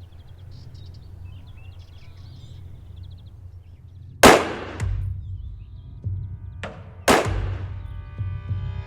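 Two loud gunshots about three seconds apart, the first about four seconds in, with smaller knocks between them and a ringing tone that hangs on after the second shot. Before the shots, a low steady rumble with faint bird chirps.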